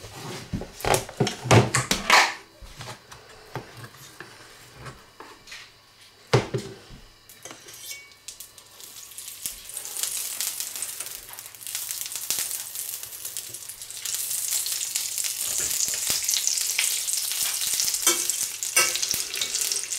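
Chunks of bear fat sizzling as they melt in a hot cast-iron skillet and are pushed around with a spatula. There is clatter of utensil and pan in the first couple of seconds, then a hiss that grows louder through the second half as the fat heats.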